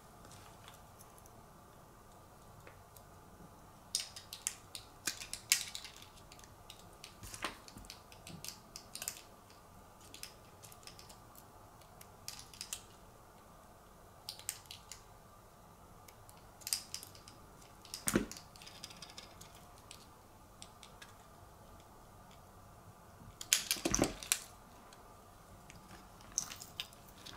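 Scattered small metallic clicks, taps and clatters of jewelry pliers, steel jump rings and split key rings being handled while jump rings are twisted open and closed to hang acrylic keychains. The loudest burst of clatter comes about 24 seconds in.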